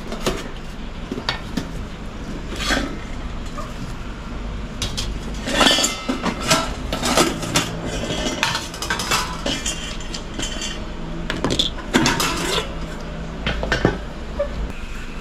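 Thin metal steamer pot parts, the perforated steamer tier and lid, clinking and clattering against each other as they are handled, in several separate rounds of clatter, the busiest about halfway through and again near the end.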